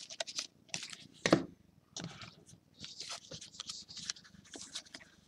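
A stack of 2016 Topps Premier Gold soccer trading cards being flipped through by hand, cards sliding and scraping against each other in short irregular strokes, with one louder scrape about a second in.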